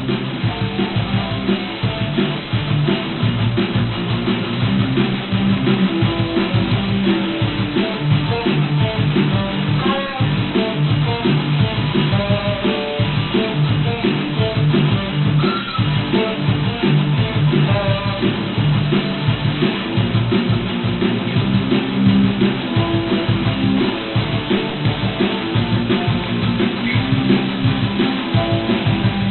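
Guitar being played: a steady stream of short picked notes with no pause.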